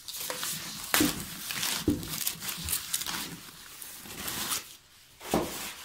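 Plastic bag and foam packaging sheet rustling and crinkling as a speaker is pulled out of its wrapping, with a few sharper crackles.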